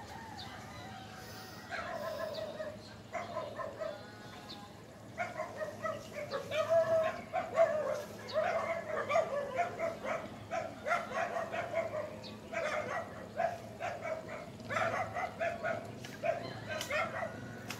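A dog barking repeatedly, starting about two seconds in and coming thick and fast from about five seconds on, over a low steady hum.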